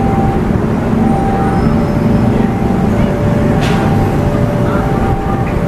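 Railway level-crossing warning alarm sounding a repeating two-tone signal, high and low notes alternating about once a second, over a steady low rumble from the passing electric commuter train and the motorbike traffic. A brief hiss comes about two-thirds of the way through.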